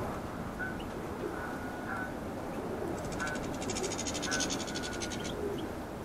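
Small aviary finches (goldfinches and siskins) calling with short chirps and brief whistles. From about halfway through, a fast, high, buzzing twitter of song runs for about two seconds.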